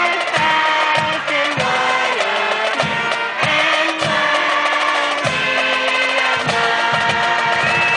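High school marching band playing the alma mater, brass chords over steady bass drum strokes about once a second, with a crowd of students singing along.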